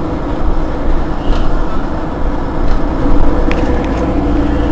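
Mercedes-Benz Citaro G C2 articulated city bus's engine idling steadily while the bus stands at a stop. A couple of light clicks come near the end.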